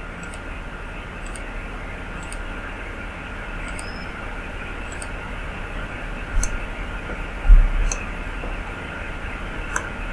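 Computer mouse clicking, a sharp click about every second, over a steady microphone hiss. Two low thumps come about six and a half and seven and a half seconds in, the second the loudest sound.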